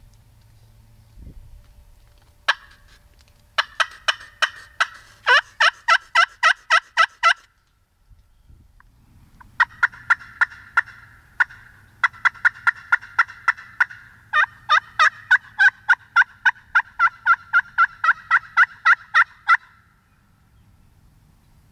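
Hand-operated turkey call worked by a hunter, sounding loud, rapid hen yelps at about four notes a second: one note about two and a half seconds in, a run of about fifteen yelps, a short pause, then a longer run of about forty.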